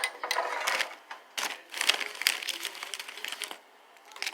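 Eating utensils scraping and clicking against a dish or food container, in two bursts of quick scraping and clatter, the second and longer starting about a second and a half in.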